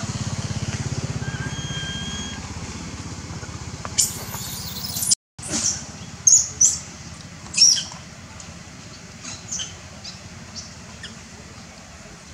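Baby macaque squealing: a handful of short, shrill, high cries, loudest a little past the middle, fading to faint squeaks. A low steady hum runs under the first few seconds.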